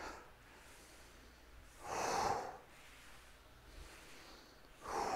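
A man's hard exhalations from the effort of reverse and side lunges: two short breaths about three seconds apart.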